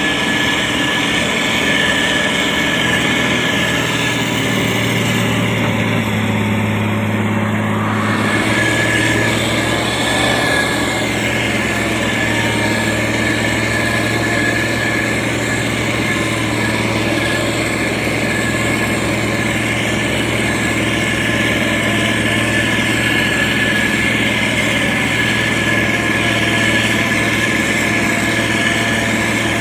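Diesel engine of a SANY STG190C-8S motor grader running steadily, a low hum with a constant high whine over it; the engine note shifts briefly about six to eight seconds in.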